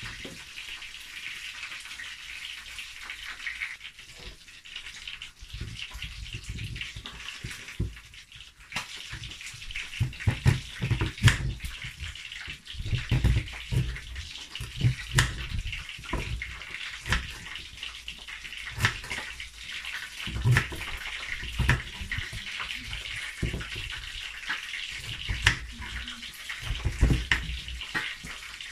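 A kitchen knife peeling and then chopping raw sweet potato on a wooden cutting board: scraping at first, then irregular knocks of the blade on the board from about five seconds in. Underneath, a steady hiss of fish frying in hot oil.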